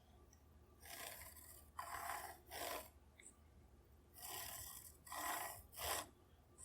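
A marking tool scraping along a rule across a walnut stock blank in six short strokes, two groups of three, as layout lines are drawn on the wood.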